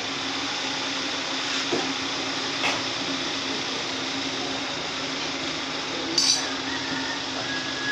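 Workshop background noise: a steady hum with a couple of light metallic clinks.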